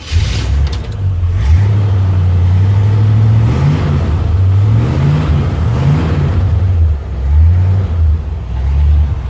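1957 Chevrolet engine running steadily and blipped up in revs a few times. There is no clacking from the exhaust: the exhaust manifold leak has been sealed by tightening its rusted bolts.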